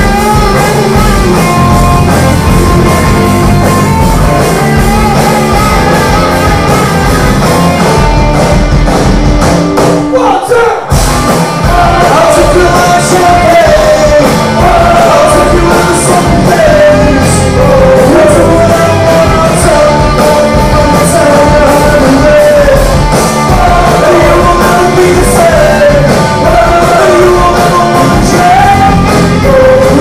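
Rock band playing live, electric guitars and drums, very loud. A man sings from partway through, after the band drops out for about a second roughly ten seconds in.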